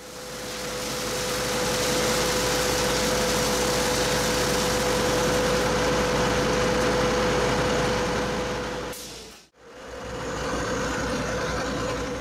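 Recycled-plastic extrusion line running, with its feed augers, mixer-dryer and extruder drive: a steady mechanical hum with a constant mid-pitched whine. It fades out briefly about nine and a half seconds in and comes back as the same steady running.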